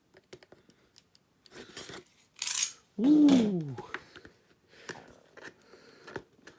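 Scattered light clicks and rustles of a boxed figure's packaging being handled and opened, with a short hissing burst about two and a half seconds in; a man exclaims "Woo!" just after it.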